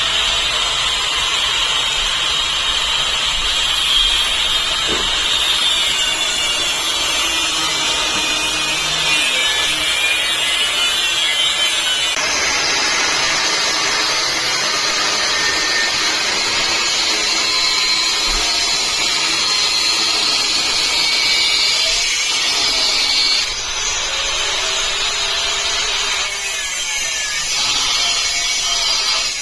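A handheld power tool running continuously with a high-pitched whine. Its sound shifts about twelve seconds in, and it eases off briefly about two-thirds of the way through.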